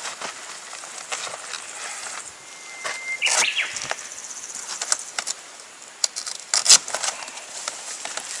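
A car-mounted side awning being unrolled from its roof-rack case: fabric rustling and flapping with clicks and knocks from its metal bar and fittings, the loudest knocks about six and a half seconds in. A short steady squeak sounds about two and a half seconds in.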